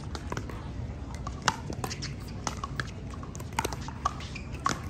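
Paddles striking a plastic pickleball during a rally: sharp pops at irregular intervals, the loudest about a second and a half in and again near the end, with fainter pops between them.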